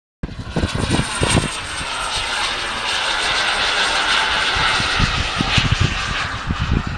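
Radio-controlled model airplane's engine running steadily in flight, a high-pitched buzzing drone, with low buffeting thumps on the microphone about a second in and again near the end.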